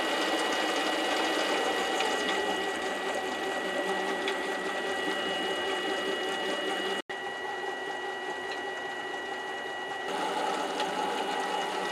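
Mini lathe running and turning a bolt blank under power feed from the leadscrew: a steady motor and gear-train sound with a thin high whine. It cuts out for an instant about seven seconds in.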